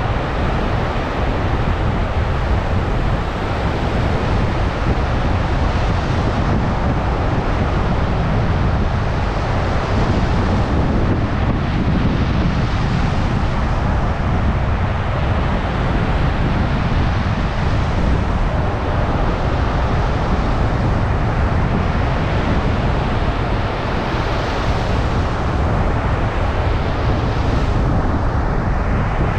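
Stormy ocean surf breaking and washing up a beach, swelling every several seconds, with strong wind buffeting the microphone as a constant low rumble.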